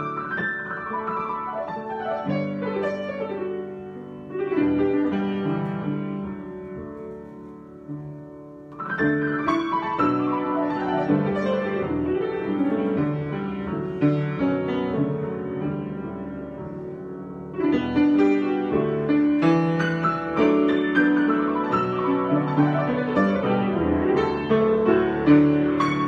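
Grand piano played solo, improvised: chords and runs in phrases that swell and die away, with strong new entries about four, nine and seventeen seconds in, busier and louder in the last third.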